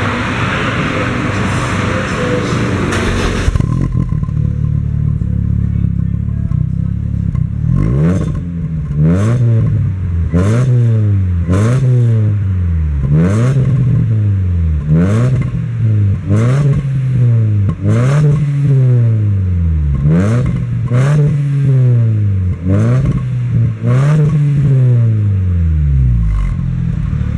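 Opel Corsa B 1.6-litre four-cylinder engine heard through a newly made rear exhaust muffler: after a loud rushing noise that cuts off about four seconds in, it idles, then is revved in about a dozen quick throttle blips, each rising and falling in pitch with a short click at its start.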